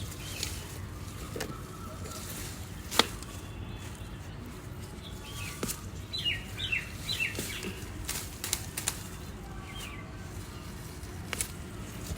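Birds chirping in short high notes, clustered about halfway through, over a low steady hum, with a few sharp clicks or taps, the loudest about three seconds in.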